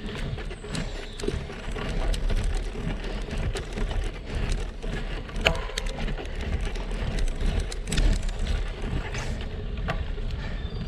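Road bike riding on a rough asphalt lane: steady tyre and wind noise with a low rumble, and scattered sharp clicks and rattles from the bike, the loudest about five and a half and eight seconds in.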